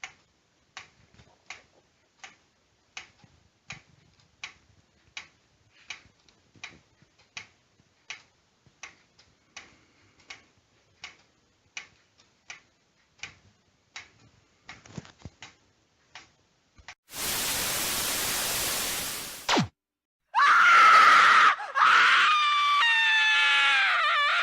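Faint, even ticking about one and a half times a second, such as a waving lucky cat's arm mechanism makes. About two-thirds of the way through it stops, and a loud burst of hiss follows for a couple of seconds, then a very loud scream whose pitch slides up and down: a jump-scare.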